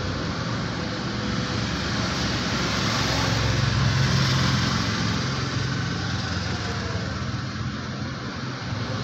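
Road traffic passing on a city road: car, motorcycle and auto-rickshaw engines with tyre noise, as a steady hum that swells a little about four seconds in.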